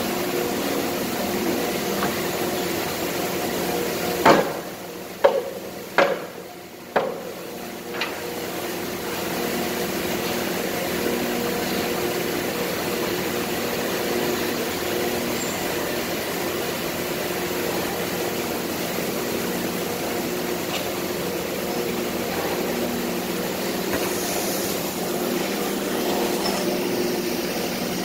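Steady industrial machinery hum with several fixed tones, from a plastic injection moulding machine on the factory floor. About four seconds in, the hum dips and five sharp knocks come roughly a second apart before the hum returns.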